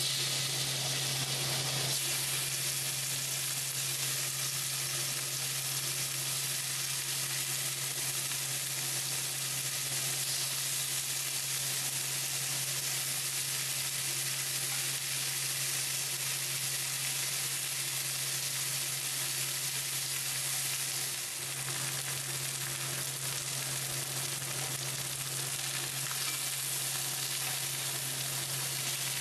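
Raw chicken pieces sizzling in hot oil in a cast-iron skillet over high heat, the sizzle jumping up sharply as the first piece goes in and then holding steady. A steady low hum runs underneath.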